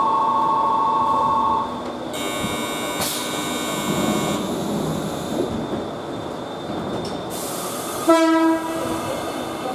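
Electric train departing a station: a steady electronic tone stops about a second and a half in, a high ringing follows for a couple of seconds, then a hiss of air, and a short horn blast about eight seconds in, the loudest sound.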